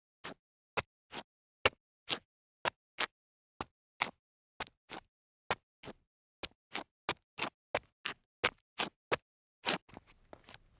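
Sneaker steps on concrete: short, sharp toe scuffs at about two to three a second, a little faster in the second half. Near the end comes one longer scrape, then a few faint shuffles as the foot turns.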